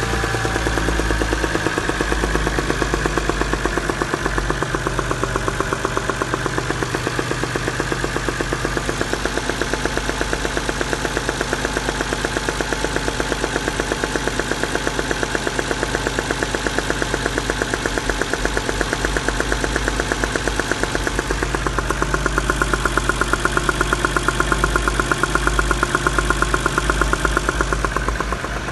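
Toyota 2JZ-GTE 3.0-litre straight-six engine running at idle with a fast, regular knock in time with the engine. The knock is the fault the owner is showing. It gets a little louder near the end.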